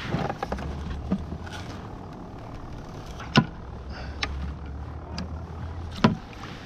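Small clicks and knocks of fishing tackle handled on a plastic kayak as a split shot is fixed to the leader, over a low steady hum. Two sharper clicks stand out, about three seconds in and near the end.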